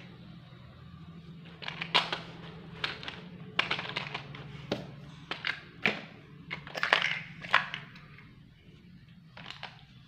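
Hard plastic toy block cars and balls clacking and knocking together as they are handled and batted about, a quick, uneven run of knocks over several seconds.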